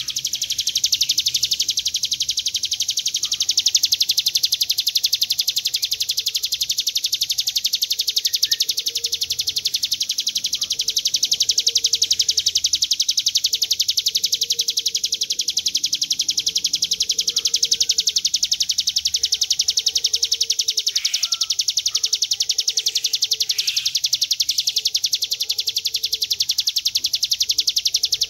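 Ciblek gunung, a prinia, giving its long "ngebren" song: one unbroken, very fast, high-pitched buzzing trill held at a steady level. A few faint, lower chirps from other birds sound behind it.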